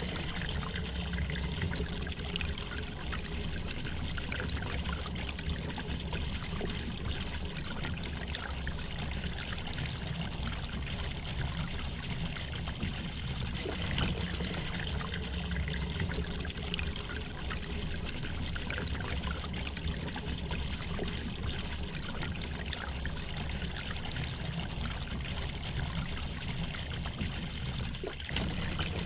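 River water flowing and trickling steadily over stones, a continuous babbling rush.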